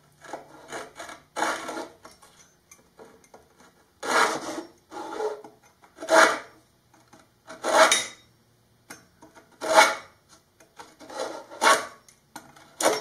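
Hand file scraping along the walnut edging strip of a wooden panel, in about a dozen separate strokes with short pauses between them.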